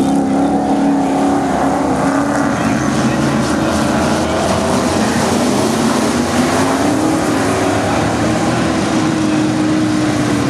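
Several V8 dirt-track race cars running together around the oval, their engine notes blending into a steady drone that rises and falls as they throttle through the turns.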